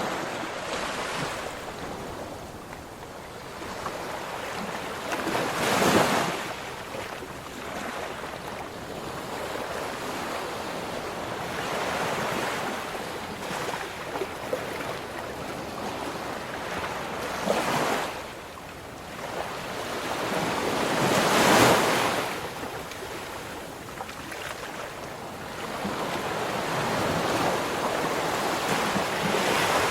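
Ocean waves breaking on a shore: a steady wash of surf, with individual waves cresting and crashing every few seconds, the loudest about 6 seconds in and again about 22 seconds in.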